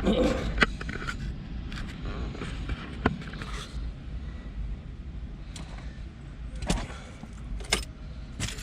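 Scattered sharp clicks and knocks, a handful over several seconds, over a steady low rumble.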